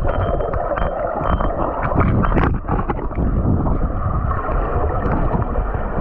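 Waterfall water crashing close to the microphone: a loud, steady rush with a heavy low rumble and scattered splashes.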